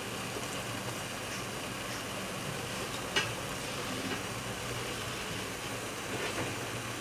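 Pot of water and oil on the stove, sizzling with a steady hiss as flour and starch go into it, with one sharp click about three seconds in.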